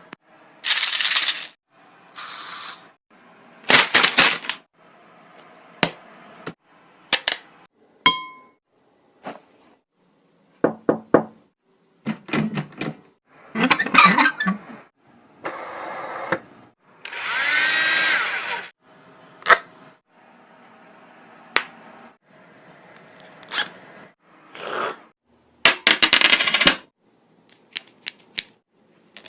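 A string of short, separate sound effects made by a performer, each lasting up to about two seconds with brief gaps between: a mix of hissy noises, clicks and a few pitched, wavering sounds.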